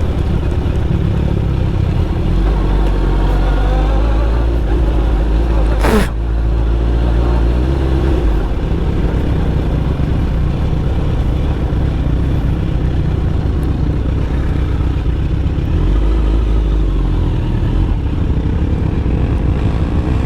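Suzuki GSX-R1000 inline-four engine running at low revs while the sportbike is ridden off road, its pitch rising and falling with the throttle. About six seconds in, a single sharp knock cuts across it.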